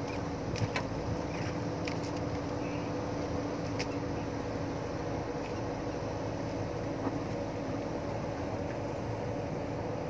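JCB backhoe loader's diesel engine running with a steady hum while the backhoe arm moves, with a few sharp clicks in the first four seconds.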